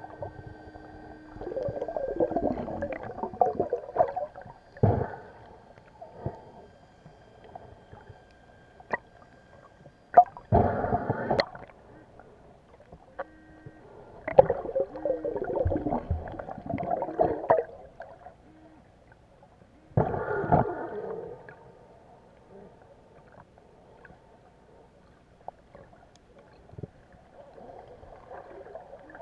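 Muffled underwater gurgling and bubbling in several bursts a few seconds apart, some lasting a second or two, others up to about four seconds.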